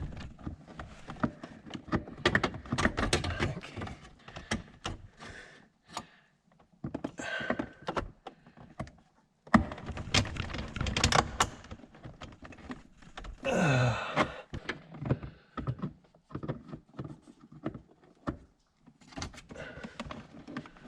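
Irregular clicks, knocks and rattles of pliers and plastic parts under a car's dashboard as the clip of a seized HVAC temperature control cable is worked free, with short quiet pauses between bursts of handling.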